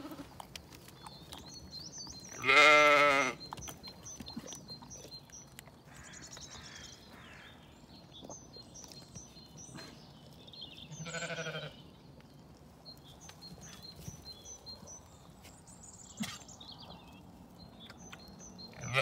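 Zwartbles sheep bleating at a water trough: one loud bleat about two and a half seconds in and a softer one about eleven seconds in. Between them are faint small sips and clicks as the sheep drink.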